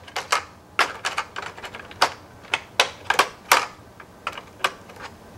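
Metal tweezers clicking and tapping against a hard plastic tray insert while tiny accessory parts are picked out of its cavities: a run of sharp, irregular clicks that stops shortly before the end.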